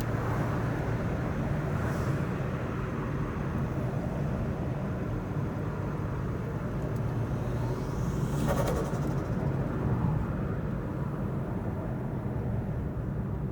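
Toyota Verossa's turbocharged 1JZ straight-six running. About eight seconds in, it is revved: a rising turbo whistle builds, then breaks into a quick fluttering chatter of the turbo.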